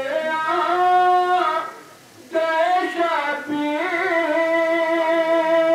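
A man singing a line of Urdu devotional verse solo, in long held notes that waver and slide between pitches, in two phrases with a short break about two seconds in.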